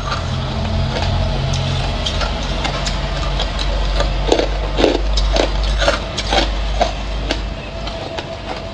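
Hard clear ice cubes being bitten and chewed close to the microphone: crackling crunches, becoming sharper and coming about twice a second from about halfway through, over a steady low rumble.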